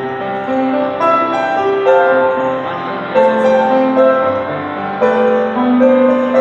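Live band music led by a grand piano: a slow melody over held chords.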